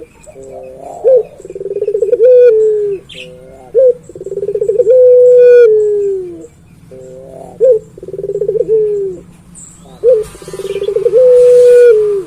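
Male puter pelung dove cooing over and over: each phrase is a stuttering run of quick notes that leads into a long, held coo dropping in pitch at the end, repeating about every three seconds.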